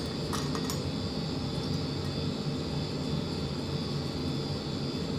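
Steady background machine hum and hiss, with a few light metallic clicks in the first second as shoulder bolts are set by hand into the flathead's aluminium cam gear and locking plate.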